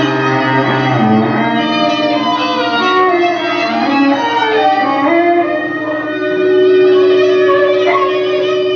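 A string trio playing bowed strings, holding long notes and sliding between pitches. A low note drops out about a second and a half in, and a long, steady higher note is held through the last few seconds.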